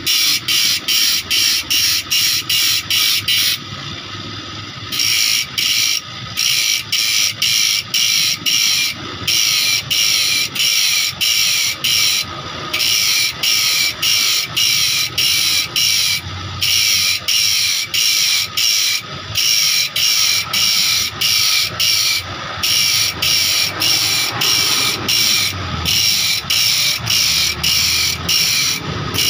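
A small motor-driven grinding disc cuts the teeth of a steel hand saw, sharpening and re-forming them. It makes a shrill grinding hiss over a steady motor whine, in quick even strokes of about three a second. The strokes break off briefly now and then as the blade is moved along, with the longest break about four seconds in.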